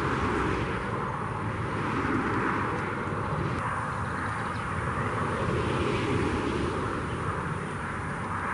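Steady traffic noise from a nearby highway, swelling and easing every few seconds as vehicles pass.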